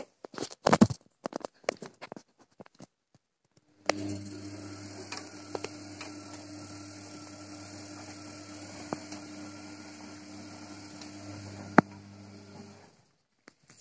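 Gorenje WA 50050 front-loading washing machine mid-cycle. A few scattered soft knocks come first, then about four seconds in a steady hum with a watery hiss sets in, which cuts off shortly before the end.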